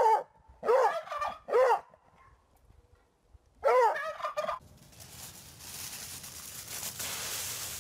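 Turkey gobbling: four short warbling calls in the first four and a half seconds, the last the longest. From about five seconds in, a steady low rustle of dry leaves.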